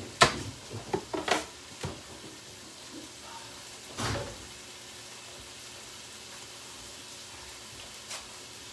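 Bacon sizzling steadily in a frying pan. Several sharp knocks come in the first two seconds and another about four seconds in.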